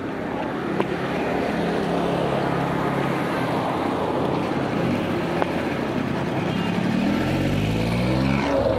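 Steady engine and road noise heard from inside a moving jeepney, with the engine pitch rising about seven seconds in as it speeds up.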